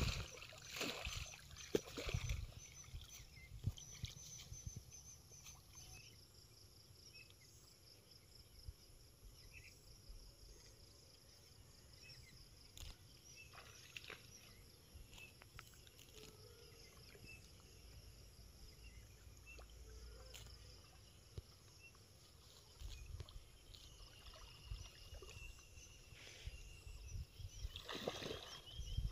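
Quiet outdoor ambience at the waterside: a faint, steady high-pitched chirring, with scattered small knocks and water sounds.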